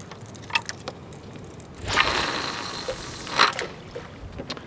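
Water splashing for about a second and a half, with a faint click before it and another as it ends.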